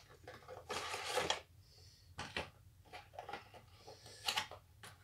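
Cardboard box and plastic packaging being handled and pulled open by hand: a rustling tear about a second in, then a few sharp clicks and taps.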